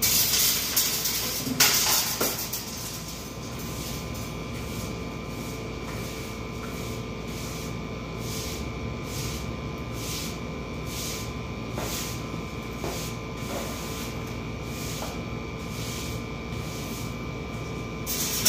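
A broom sweeping a hard floor: a steady run of bristle swishes, about one and a half strokes a second, louder in the first two seconds. A faint steady hum runs underneath.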